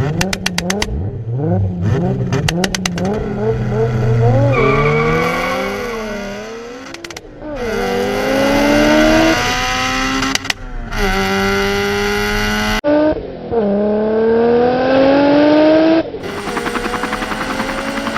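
Car engine revving hard through the gears: the pitch climbs, drops sharply at each shift, and climbs again several times, like a race car accelerating down a drag strip.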